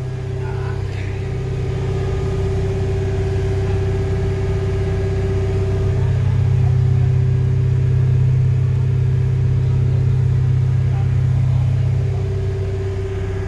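An engine running steadily with a low hum, getting a little louder about six seconds in and easing back near the end.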